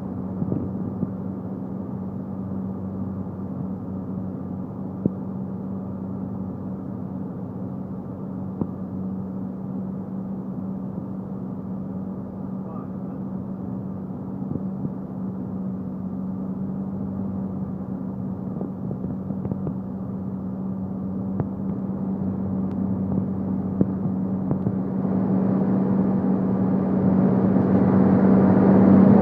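Cirrus SR22's six-cylinder piston engine and propeller droning steadily in flight, one strong low hum with overtones, with a few faint clicks. Over the last few seconds the sound grows steadily louder and fuller.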